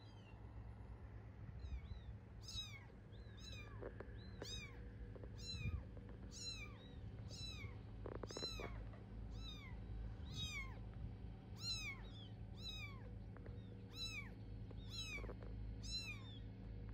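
A very young kitten meowing over and over, high-pitched calls each rising then falling, about three every two seconds, starting about two seconds in and stopping near the end. This is the repeated crying of a kitten separated from its mother.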